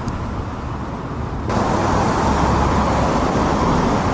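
Steady rumbling background noise with a hiss, like road or traffic noise, that steps up abruptly louder about a second and a half in.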